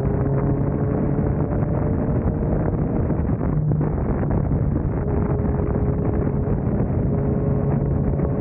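Motorcycle engine running at a steady cruise, its hum drifting slightly in pitch, under heavy wind noise on the microphone.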